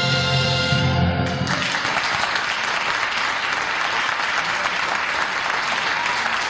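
A big band of saxophones, trumpets and rhythm section holding its final chord, which cuts off about a second and a half in. The audience then applauds steadily.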